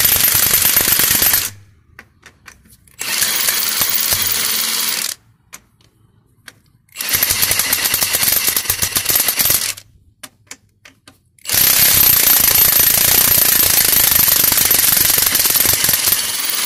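Milwaukee cordless impact wrench hammering on a car's lug nuts in four runs, each a couple of seconds long, the last the longest at about five seconds. The nuts just spin and won't come off, because the wheel studs are stripped out inside the hub.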